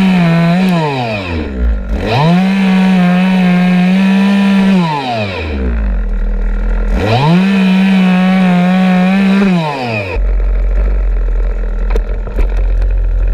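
Craftsman 18-inch gas chainsaw cutting wood: its two-stroke engine revs up to full throttle three times, dropping back between cuts, then settles to idle about ten seconds in. The chain is a dull one, re-sharpened at a store, and cuts, though not as well as a new chain would.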